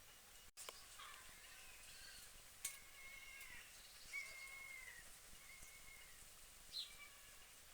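Gulls calling, faint: a string of drawn-out calls, each under a second, with a few short clicks in between.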